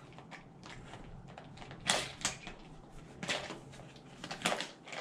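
Hands rummaging in a fabric backpack's top pouch: a few short, irregular rustles and clicks, faint, as an item is worked out of the pouch.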